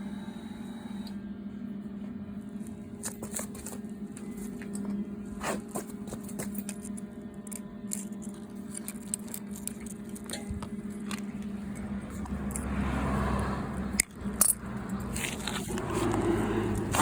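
Daihen welding machine running with a steady low hum and scattered clicks. About two-thirds of the way in, the sound gets louder and rougher, with two sharp knocks.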